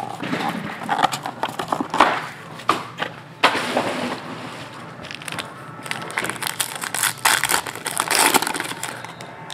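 Foil wrapper of a trading-card pack crinkling and tearing as it is opened by hand, in several spells of rustling, the loudest near the end.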